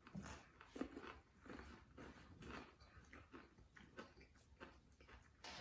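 Faint, irregular chewing: soft mouth clicks and smacks of someone eating corn tostadas with dip.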